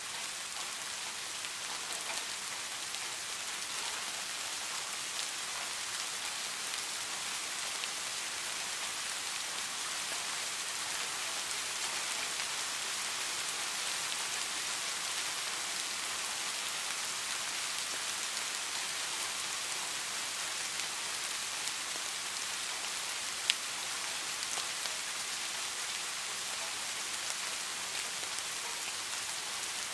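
Steady rain falling: an even hiss full of small drop ticks, with one sharp tick, louder than the rest, about two-thirds of the way through.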